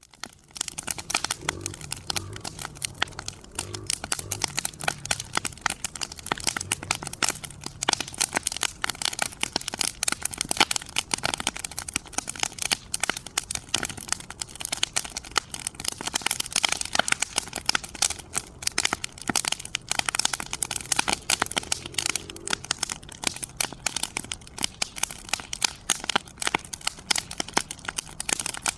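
Wood fire in a fire pit crackling steadily, with a dense run of small snaps and pops throughout.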